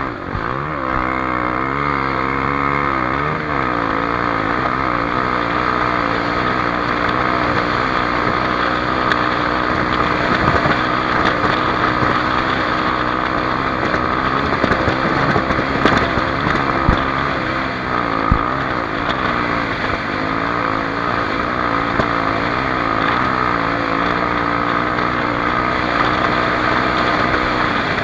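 Honda XR250 Tornado's single-cylinder four-stroke engine running hard, its revs rising and falling with throttle and gear changes. A few sharp knocks sound in the middle.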